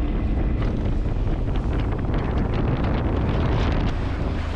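Outboard motor running at high throttle on a small bass boat at speed, under heavy wind buffeting on the microphone and water rushing past the hull.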